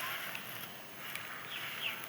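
Faint crackle and a couple of light ticks from crumbled sand-cement, with a few short, high, falling chirps near the end.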